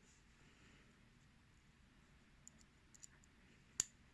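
Near silence with a few faint small clicks and one sharper click near the end: small metal lock pins and tweezers being handled.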